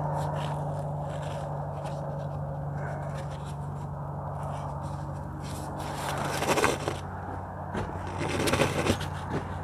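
Scraping and rustling from handling the tent's guy lines and fabric, louder twice in the second half, over a steady low hum.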